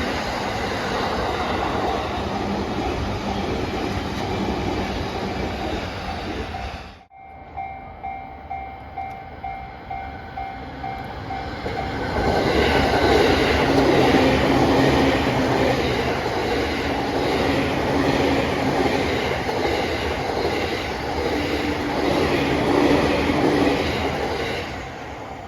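A train passes over a level crossing with its wheels clattering on the rails. After a break about seven seconds in, a level-crossing warning bell rings in a steady pulse of about one and a half strokes a second. From about twelve seconds in, another train passes loudly over the crossing.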